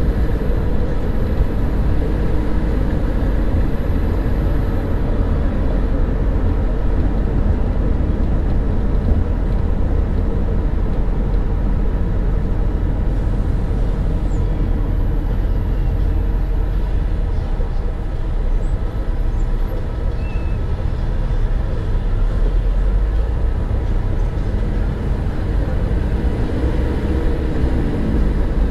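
Car driving along a city street: a steady low rumble of engine and tyre noise.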